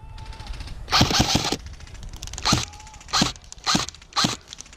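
Airsoft gun firing: a quick burst about a second in, then single shots at roughly two a second.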